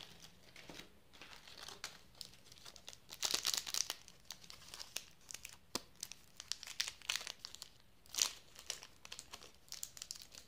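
Plastic candy wrappers crinkling under the hands, then the wrapper of a small Cadbury Dairy Milk bar being torn open, with irregular crackles. The thickest run of crackling comes about three seconds in, and a sharp crackle a little after eight seconds.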